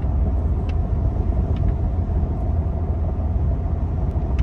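Steady low rumble of road and engine noise heard from inside a vehicle cabin while driving at highway speed, with a faint steady hum over it.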